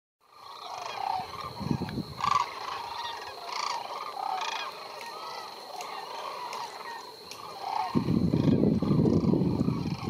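A large flock of sandhill cranes calling: many overlapping rolling, trumpeting calls. About eight seconds in, a loud low rumble joins and becomes the loudest sound.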